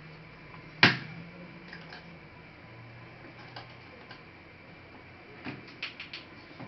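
A single sharp knock about a second in, then a few light clicks near the end: plastic laptop parts and small tools being handled during disassembly.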